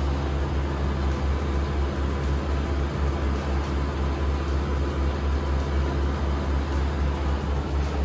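Boat engine running steadily with a deep, even drone and water and wind noise over it.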